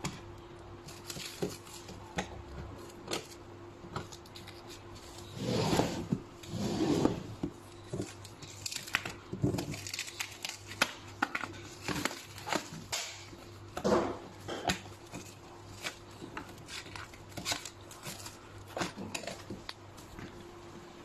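Clear plastic stretch wrap crinkling and tearing as it is pulled off an aluminium-framed flight case, with sharp clicks from the case's metal latches. The loudest rustling comes in a few bursts, about six seconds in and again near fourteen seconds.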